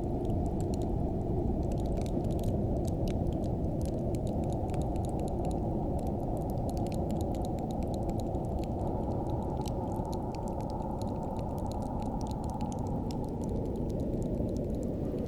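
Steady low wind with a dense scatter of fine, crisp crackling ticks over it, a frost or ice crackle.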